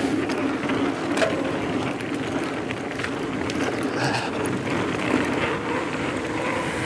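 Transition Spur mountain bike rolling fast down a hardpacked dirt trail: steady tyre and wind noise with a steady hum, and a few sharp clicks and rattles from the bike.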